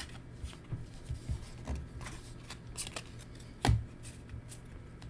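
Weiss Schwarz trading cards being handled and sorted by hand: soft rustles and light clicks of cards sliding over each other, with one louder knock about three and a half seconds in.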